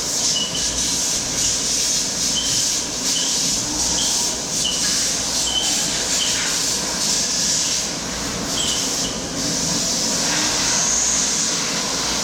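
CNC machine running: a steady high-pitched hiss over a low rumble, with short high squeaks repeating at irregular intervals.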